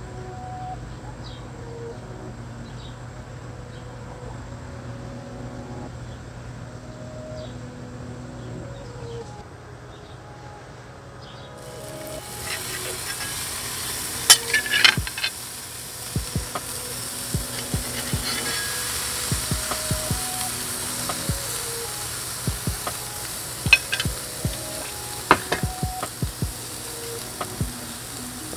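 For the first twelve seconds only a soft background tune is heard; then ostrich steaks laid on a hot sear grate over charcoal sizzle steadily, with sharp clicks of the utensil against the grate now and then.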